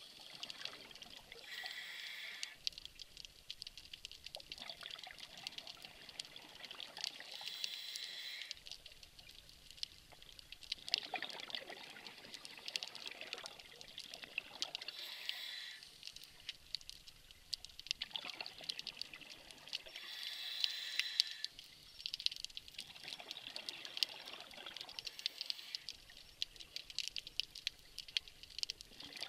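Scuba regulator breathing heard underwater: a bubbling rush of exhaled air about every five to six seconds, over a steady faint crackle.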